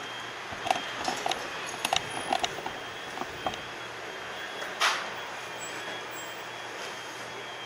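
Quiet room background with a faint steady hum, broken in the first few seconds by scattered light taps and scuffs of shoes on the floor as people walk into place, and by one short louder rush of noise about five seconds in.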